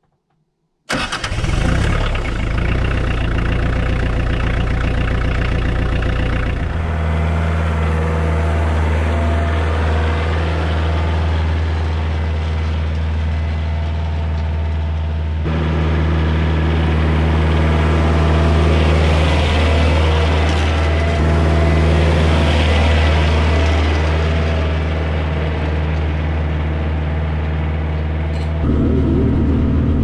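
Kioti DK40SE tractor's diesel engine cranking and catching about a second in, then running steadily. Its note changes several times as the tractor gets under way.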